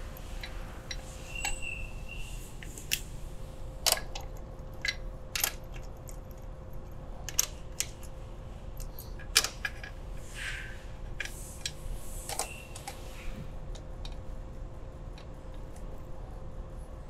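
Crankcase bolts being threaded in by hand into a Polaris Ranger/RZR engine case half: irregular small metallic clicks and clinks with a few short scrapes.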